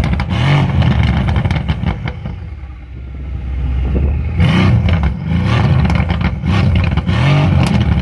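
Mercedes-AMG C63 S's tuned twin-turbo 4.0-litre V8 (M177) revved hard through its exhaust tips in two bursts, one at the start and one from about halfway to the end. The revs rise and fall with a dip in between, and sharp crackles come through as the revs drop.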